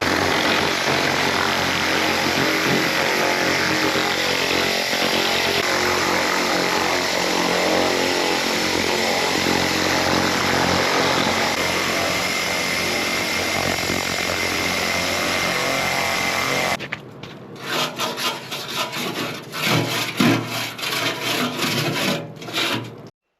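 Handheld laser cleaner ablating rust, scale and old paint off a steel car frame: a loud, steady crackling hiss with a faint high whine. About 17 seconds in the sound turns rougher and rapidly pulsing, then stops abruptly near the end.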